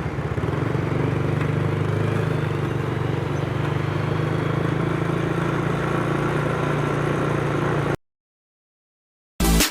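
A bus's diesel engine running steadily with an even low hum. It cuts off abruptly about eight seconds in.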